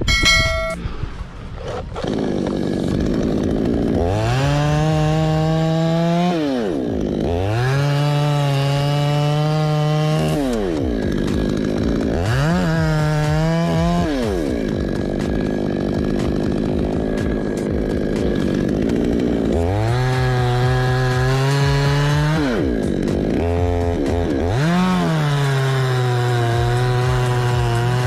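Two-stroke petrol chainsaw cutting through a coconut palm trunk. The throttle is opened and released five times: each time the engine climbs to full revs, holds while the chain cuts, then drops back.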